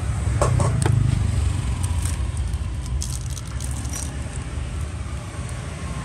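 Steady low rumble of passing road traffic, with a few light clicks and taps in the first four seconds.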